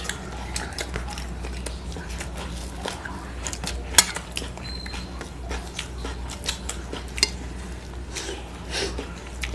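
Fingers mixing rice and curry on stainless steel plates: scattered light clicks and scrapes against the metal, with one sharper click about four seconds in, over a steady low hum.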